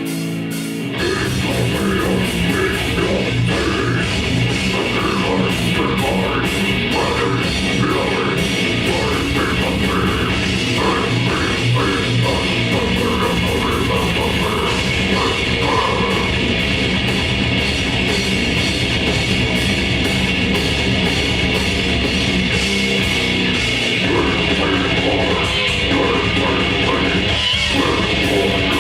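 Live grindcore band playing: a held guitar chord, then about a second in the drums, bass and distorted guitars come in together, with rapid drum hits throughout.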